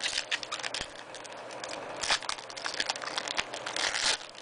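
Foil trading-card pack wrapper crinkling and crackling as it is handled and torn open, with a louder rustle about two seconds in and again near the end.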